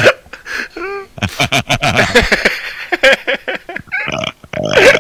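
Men laughing hard in uneven bursts, with a brief high squeal about a second in.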